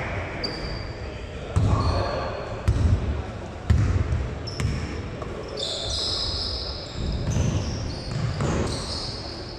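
Basketball game play on an indoor court: a ball thumping on the floor about once a second early on, and sneakers squeaking in short high chirps, thickest in the second half, with faint voices in the hall.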